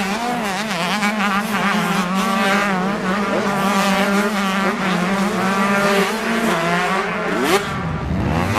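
Several motocross bike engines on track at once, revving up and down as they ride the circuit, with one engine revving sharply upward about seven and a half seconds in.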